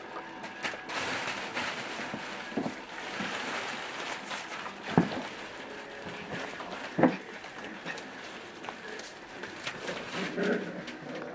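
Rustling and bumping with light clicks, and two sharp knocks about five and seven seconds in.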